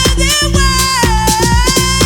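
Electronic dance music with a steady beat and bass, and a melodic sung lead holding a long note that dips and rises.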